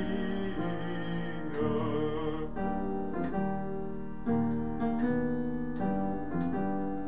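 Piano playing slow, sustained chords of an operatic accompaniment, a new chord struck about every second, with a wavering held note over the first two seconds.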